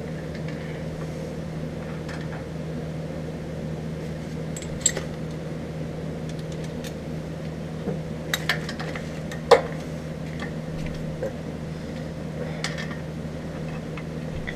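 Scattered metal clinks and taps as torque converter parts and bolts are handled and fitted, the loudest with a short ring about two-thirds of the way in, over a steady low hum.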